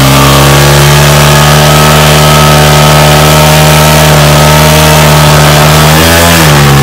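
TVS Apache RTR motorcycle's single-cylinder engine held at high, steady revs while the rear tyre spins on gravel in a stationary burnout. Near the end the revs dip and climb again.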